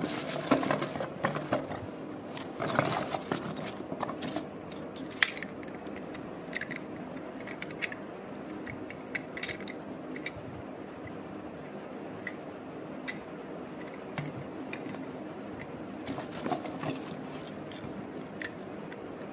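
Hands handling a small plastic toy airplane car: rustling, crackling and clicking of light plastic, busiest in the first few seconds, then scattered light clicks and taps as it is turned over and set down.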